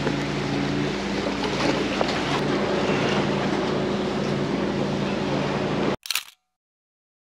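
Steady wash of surf and wind against the rock jetty, with a low steady hum underneath. About six seconds in the sound cuts off abruptly, followed by a brief burst and then silence.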